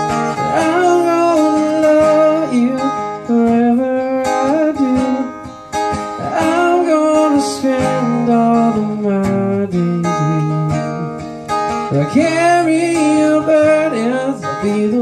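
Acoustic guitar strumming, with a melody line on top that slides and bends in pitch. It comes in phrases that start about every six seconds.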